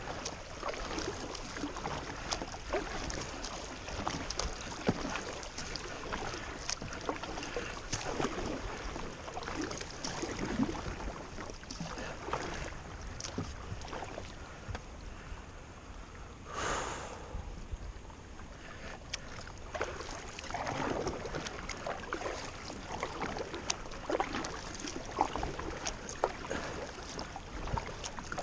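Kayak paddling on a river: irregular paddle splashes and water moving around the boat, with one louder rush of water a little past the halfway point.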